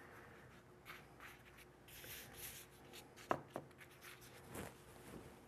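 Faint rustling and rubbing of hands handling thin sheets of phyllo dough and laying them into a glass baking dish, with two light taps a little over three seconds in.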